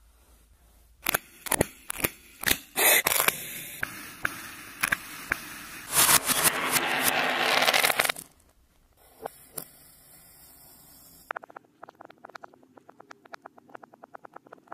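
Kinetic sand being pressed, cut and pulled apart: crisp crunches and crackles, a louder stretch of crumbling sand about six to eight seconds in, and a quick run of fine crackles near the end.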